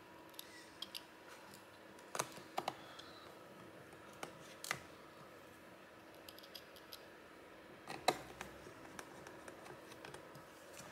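Faint, scattered clicks and taps as the laptop's bottom cover is pressed down along its edge, its clips seating, about half a dozen distinct clicks spread across several seconds. Near the end a small screwdriver is set into a screw hole.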